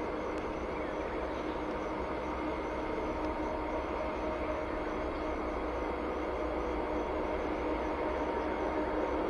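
Norfolk Southern diesel locomotive passing close by: a steady engine drone over a low rumble, growing a little louder near the end.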